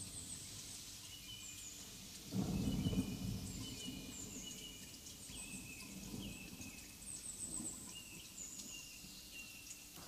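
Rainforest soundscape: a low roll of thunder swells about two seconds in and fades slowly, over a hiss of rain, with short high chirping calls repeating above it.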